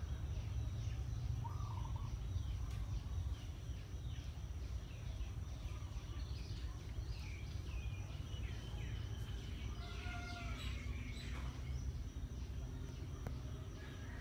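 Many small birds chirping and warbling in overlapping calls, busiest in the second half, over a constant low rumble.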